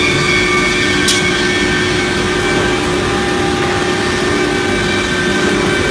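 CNC router's 6 kW HSD spindle running at speed, a steady multi-tone whine over a rushing machine noise, with one short high tick about a second in.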